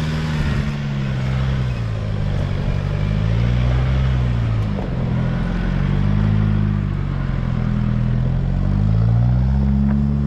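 Nissan Patrol Y62's petrol V8 engine working up a steep off-road hill climb, its revs rising and falling several times as the driver feeds the throttle on and off.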